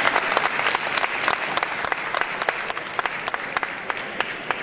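Spectators applauding the end of a table tennis rally, the clapping dying away over a few seconds, with sharp clicks scattered through.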